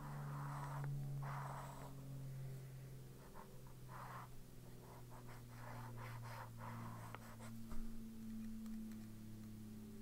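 A metal-nibbed swatch pen scratching wet ink onto planner paper in a series of short back-and-forth strokes, with a sharp tap about eight seconds in. A steady low hum runs underneath.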